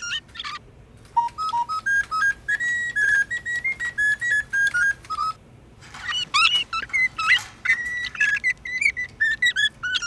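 A short tune of clear, flute-like notes, about a dozen held notes stepping up and back down, followed about six seconds in by a domestic canary singing fast chirps, rising sweeps and trills.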